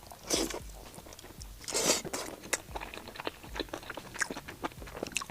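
Close-up biting and chewing of crunchy deep-fried skewer food: crisp crunches, with two louder crunches about half a second and two seconds in and smaller clicks between.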